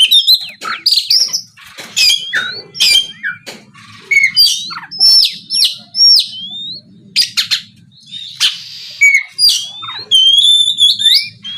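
Oriental magpie-robin (kacer) singing a loud, varied song: quick whistled notes with rising and falling slurs, broken by short gaps and mixed with sharp, harsh call notes.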